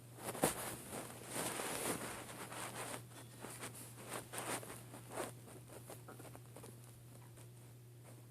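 Human stomach gurgling and bubbling: a dense burst of squelchy, crackling gurgles in the first couple of seconds, then scattered pops that thin out by the middle.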